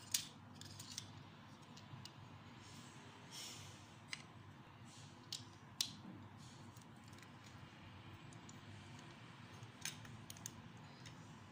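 Plastic Lego bricks clicking as they are pressed together and set down on a hard tabletop: a few sharp, scattered clicks over faint hiss, the loudest right at the start and about six seconds in.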